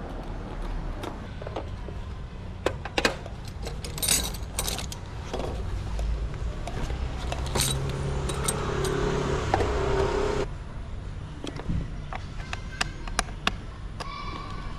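Light metallic clicks and knocks of screws, tools and parts being handled while taking apart a motorcycle's speedometer housing, over a steady low hum. A louder mechanical hum builds and cuts off suddenly about ten seconds in.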